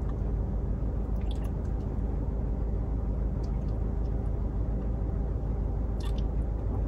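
Steady low background rumble with a few faint clicks and taps.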